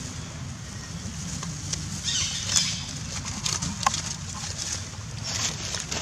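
Rustling and crackling of dry leaves as a long-tailed macaque walks over them, with a few sharp crackles, over a steady low rumble.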